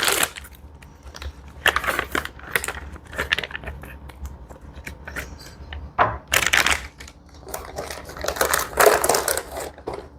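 Plastic ration food packaging crinkling and rustling in irregular bursts as it is handled, with the loudest bursts around six seconds and nine seconds in.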